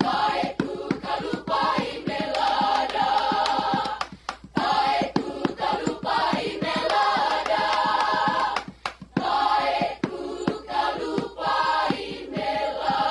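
High school choir singing, with two short breaks about four and nine seconds in.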